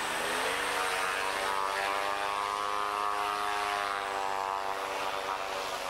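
A steady engine drone over a rush of wind, its pitch climbing slightly in the first second, holding, then easing down near the end.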